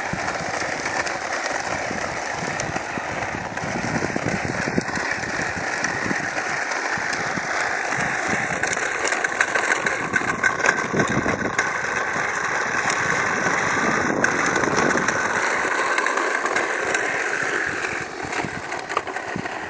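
Lawn mower running steadily, a continuous mechanical drone with a constant rattling clatter, a little louder midway and easing slightly near the end.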